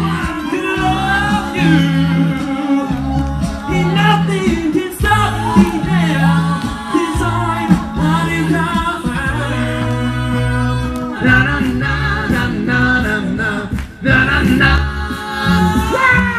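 Male a cappella vocal band singing live: a lead voice over close backing harmonies and a sung bass line, with a steady beat. A brief break about two seconds before the end leads into another song.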